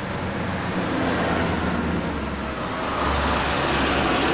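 Street traffic: a motor vehicle engine running close by over a steady road rumble, growing louder about three seconds in.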